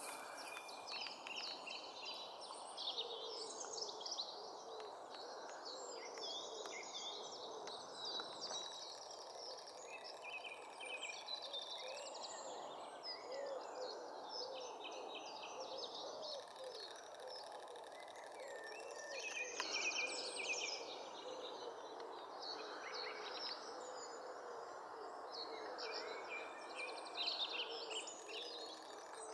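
Several small birds chirping and singing throughout, many short high calls overlapping, over a steady low background noise.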